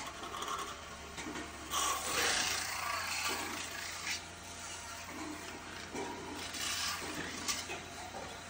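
Aluminium blank turning on a spinning lathe while a long hand-held tool is pressed against it: the tool scrapes and rubs on the metal in uneven spells, loudest about two seconds in, over the steady low hum of the lathe.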